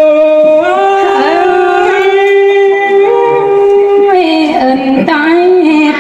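A single unaccompanied voice singing a Thái (Tai) folk song. It holds one long note from about half a second in to about four seconds, then dips and slides into shorter ornamented notes.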